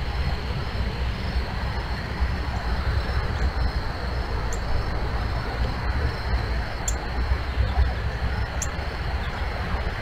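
Outdoor ambience picked up by a bird-feeder camera microphone: a steady low rumble, a thin continuous high drone above it, and a few short high chirps about halfway through.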